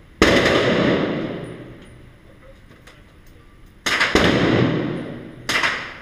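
Three gunshots at an indoor shooting range, about a quarter second in, near four seconds in and a second and a half later, each followed by a long echo that dies away slowly.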